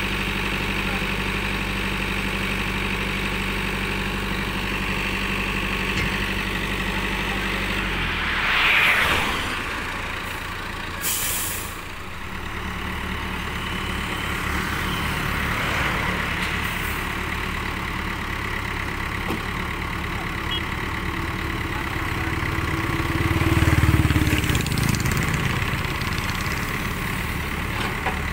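JCB 3D backhoe loader's diesel engine running and revving up under hydraulic load as the backhoe arm digs, swings and dumps soil, swelling louder twice. A short sharp hiss about 11 seconds in.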